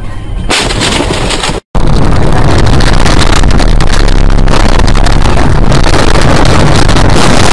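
Loud, steady noise of a moving vehicle with wind on the microphone. It breaks off for a split second about one and a half seconds in, then resumes.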